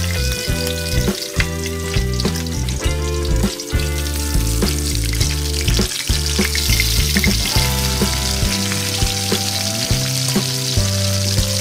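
Fish frying in hot oil in a metal wok, sizzling steadily, with a metal spatula scraping and knocking against the pan. Background music with changing bass notes plays underneath.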